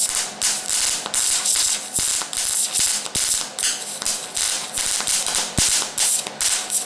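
MIG welding arc from an ESAB Rebel welder crackling and spitting on thin scrap sheet steel, in rapid uneven bursts a few times a second. The metal was not cleaned and is a little oily, so it is sparking a lot.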